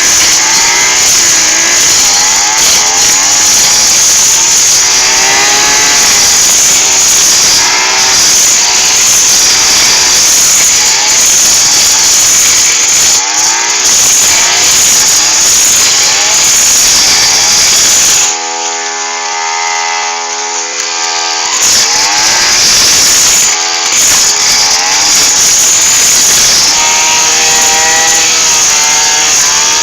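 Small petrol engine of a grass cutter running at high revs with a wavering pitch. A little past halfway it eases off to a lower, steady idle for about three seconds, then revs up again.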